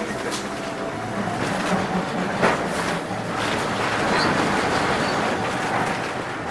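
Vintage electric tram running along its rails, heard from inside the car: a steady rumble and rattle of wheels and wooden body, with a sharp clack about two and a half seconds in.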